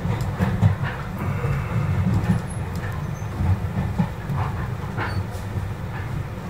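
Heritage railway passenger train running along the line, heard from on board: a steady low rumble of wheels on rails with occasional clicks and knocks.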